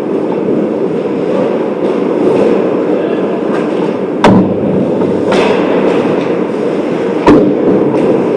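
Ice hockey play close to the goal: a steady rumble of skates on ice and rink noise, broken by two sharp loud cracks of stick and puck impacts, about four and seven seconds in, with a few fainter clicks between.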